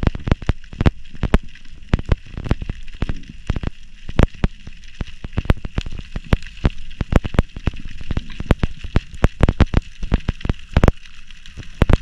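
Underwater sound through a diver's camera: irregular sharp clicks and pops, several a second, over a steady hiss.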